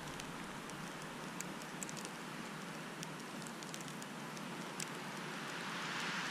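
Steady hiss of wind and windblown snow in a night snowstorm, with scattered faint ticks. It grows a little louder about six seconds in as the wind picks up.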